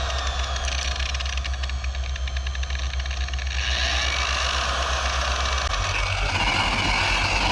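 Variable-speed electric buffer with a cutting pad running steadily against a plastic headlight lens, cutting down its sanded, oxidised surface; its low hum changes about six seconds in.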